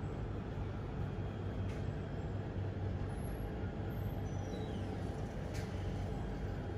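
Steady low outdoor rumble of distant road traffic, with a few faint high chirps about four seconds in.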